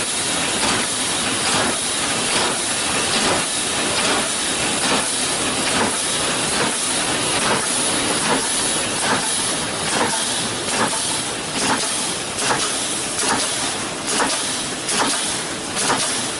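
Automatic wire mesh welding machine running, with a steady hiss and a regular clack of welding strokes a little under two per second.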